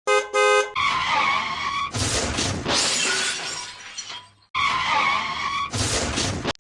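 Two short beeps, then a loud skidding-and-shattering car sound effect, which plays again in the same pattern about four seconds later.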